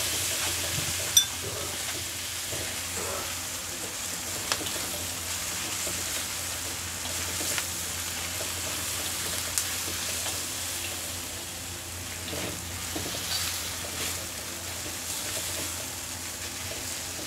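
Imin noodles, sliced sausage and chillies sizzling in hot oil in a wok while a spatula stirs and tosses them, with a few sharp knocks of the spatula against the wok.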